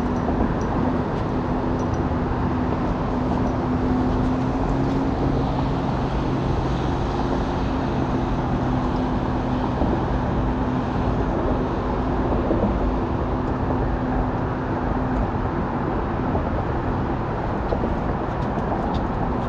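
Steady motor or traffic-like rumble with a low, even hum that fades out about fifteen seconds in.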